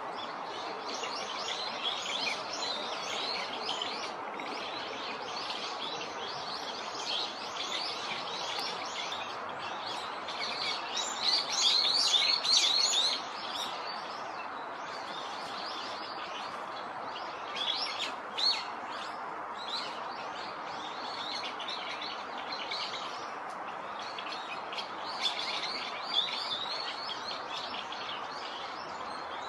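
Chinese grosbeaks (yellow-billed grosbeaks) chirping and twittering in quick runs of short high notes, louder for a couple of seconds near the middle, over a steady background hiss.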